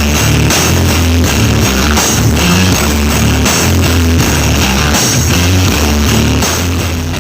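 Rock music with guitar and drums played loud through a large outdoor sound system, the bass very heavy.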